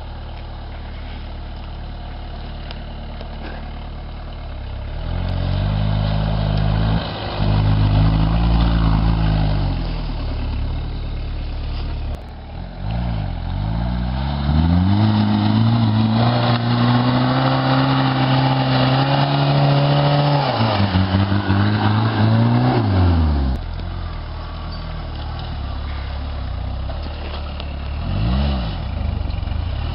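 Suzuki Samurai engine running, its revs climbing about five seconds in, easing off, then rising again and held high for several seconds before dropping back to a low steady run.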